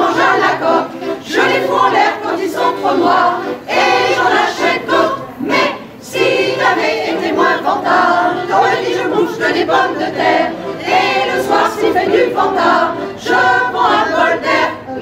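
Choir singing a song with accordion accompaniment.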